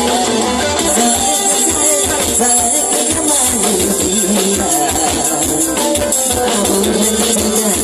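A band playing a song with a steady beat and percussion over it.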